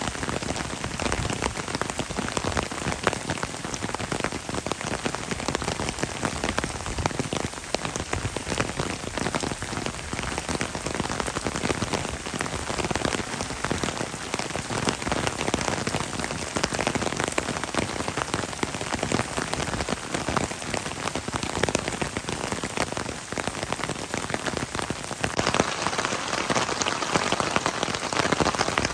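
Heavy rain falling steadily, a dense patter of countless drops, growing a little louder and brighter near the end.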